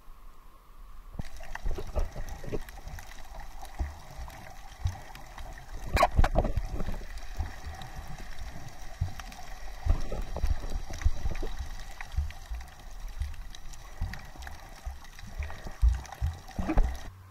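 Underwater sound at a submerged camera: water rushing and gurgling, with irregular low knocks and thumps and a sharp click about six seconds in. It begins about a second in as the camera goes under.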